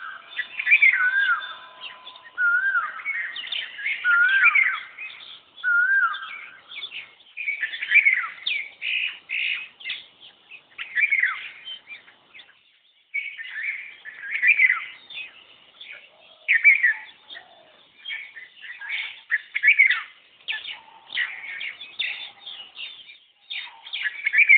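Birds calling and chirping, among them an Asian koel. Short wavering whistled notes repeat about once a second for the first six seconds, then quick overlapping chirps and calls follow.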